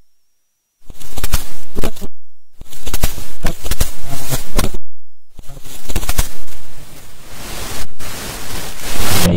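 Loud crackling static with many sharp clicks, cutting out to dead silence for a moment twice before it settles into a steady hiss.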